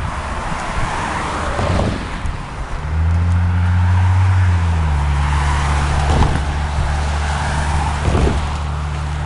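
A steady low motor-vehicle engine hum sets in about three seconds in and holds to the end, dipping slightly in pitch partway through. A few footsteps crunch on gravel track ballast.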